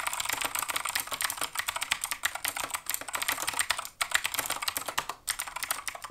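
Fast typing on a Keychron K2 mechanical keyboard in an aluminium case: a dense stream of key clicks and clacks, broken by two brief pauses about four and five seconds in.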